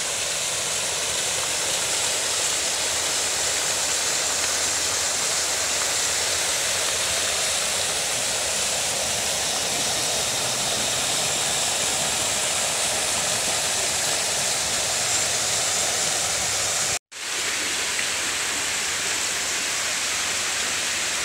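Fountain jets spraying and splashing into a pool: a steady rush of falling water, with a brief break near the end.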